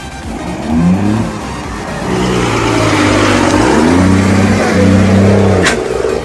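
Volkswagen Constellation truck's diesel engine revving: the pitch climbs about a second in, dips and climbs again near the middle, then holds at high revs with a rushing noise under it. It cuts off with a click just before the end.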